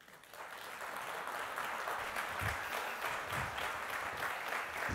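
Audience applauding, swelling up within the first half second and then holding steady.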